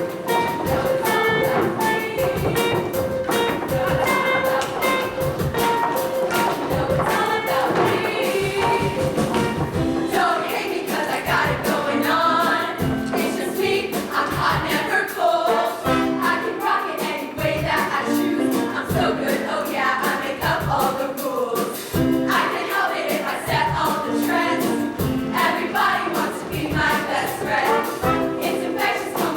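Show choir singing in parts over a live band, with a steady drum beat throughout.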